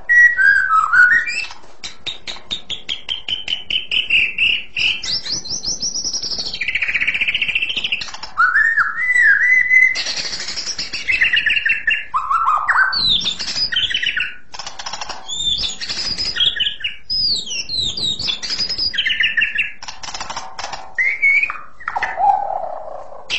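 White-rumped shama singing a long, varied song, clear and shrill. A fast run of rapid repeated notes gives way to whistled phrases that slide up and down.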